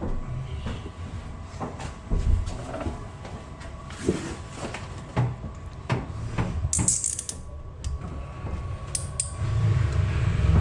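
Scattered knocks, clicks and rattles of tools and pipe-clamp hardware being handled during installation work, with a short high hiss about seven seconds in.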